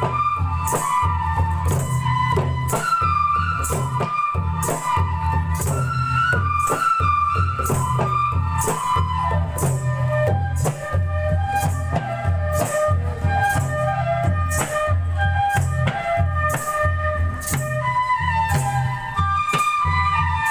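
Traditional Bodo Bagurumba dance music: a bamboo flute (sifung) melody over a steady kham drum pulse, with a jingling percussion stroke about twice a second.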